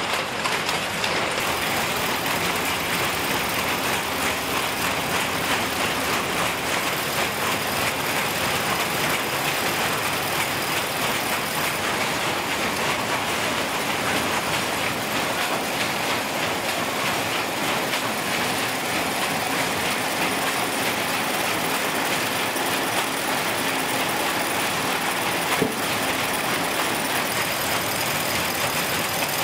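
Textile factory machinery running: power looms and yarn winding machines making a steady, rapid mechanical clatter.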